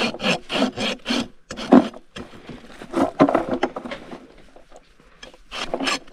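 Flat hoof rasp filing a horse's hoof in short back-and-forth strokes. They come in bursts: about four quick strokes at the start, more after a pause, softer scraping in the middle and a couple more near the end.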